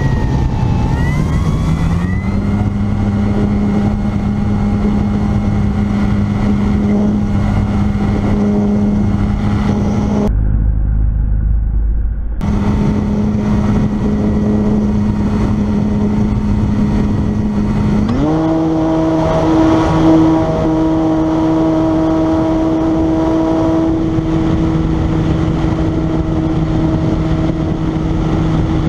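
Engine and propeller of a powered paraglider trike running steadily in flight. Its pitch dips and recovers in the first couple of seconds, and about eighteen seconds in the throttle opens and the pitch steps up and holds higher. For about two seconds near the middle the engine note drops out under a low rumble.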